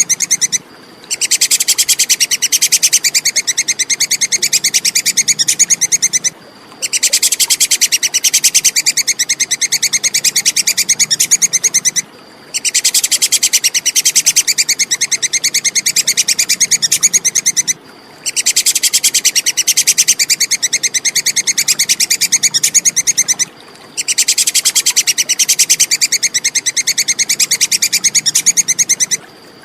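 A tupai (squirrel) giving its rapid, high-pitched 'kekes' chattering call in bouts of about five seconds, each broken off by a short pause of about half a second.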